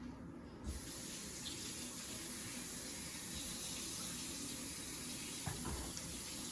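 Water running steadily from a tap into a sink, turned on about a second in.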